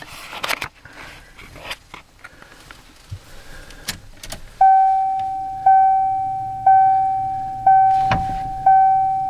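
Keys jangling and clicking in the ignition of a 1990 Ford F-350, then the dashboard warning chime strikes about once a second, five times, each note fading away. The chime sounds with the key switched on while the wait-to-start lamp shows the 7.3L diesel's glow plugs heating, before cranking. One sharp knock comes near the end.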